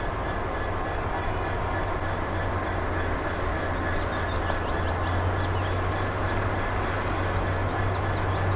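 Class 66 diesel locomotive's two-stroke V12 engine idling while the locomotive stands, a steady low hum that grows slightly louder in the second half. Short high chirps come in from about three and a half seconds in.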